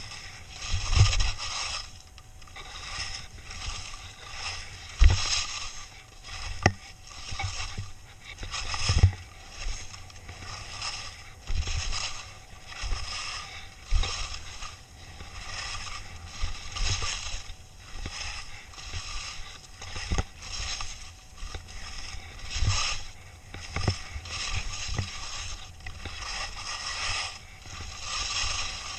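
Skis scraping and carving on snow in quick, rhythmic turns, a swell of scraping about every second or so, with sharp low thuds as the skis hit moguls.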